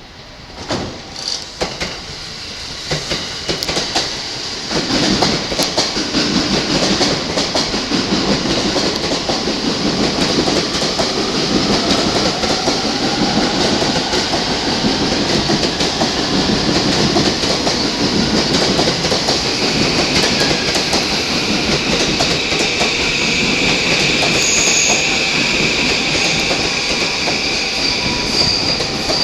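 Commuter electric train running along the platform: wheels clicking over rail joints at first, then a loud steady rumble with a gently rising motor whine, and a high wheel squeal in the second half.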